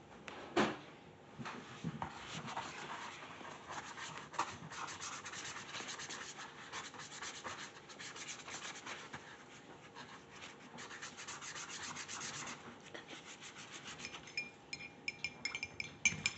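Paintbrush scrubbing and stroking across paper, a busy scratchy rubbing of many short strokes, with a single sharp knock about half a second in. Near the end it gives way to brushes clinking against ceramic mugs as they are swirled in rinse water.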